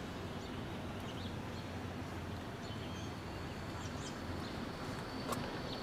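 Outdoor ambience: a steady low hum with a few faint bird chirps in the middle and a light click near the end.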